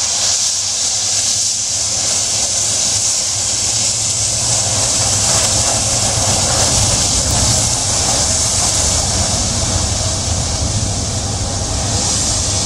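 Airliner jet engines running at taxi power close by: a loud, steady hiss over a low rumble, swelling a little midway.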